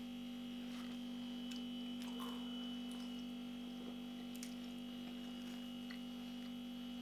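Steady electrical hum: a low, even tone with a fainter high whine above it. A few faint soft clicks come now and then.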